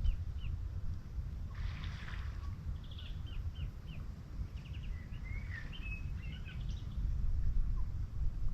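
Birds calling: short repeated chirps, then a quick warbling phrase a little past the middle, over a steady low rumble.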